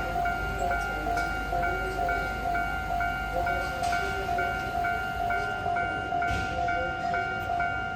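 Japanese railway level-crossing warning bell ringing in an even, repeating ding at about two strikes a second, with a low rumble underneath.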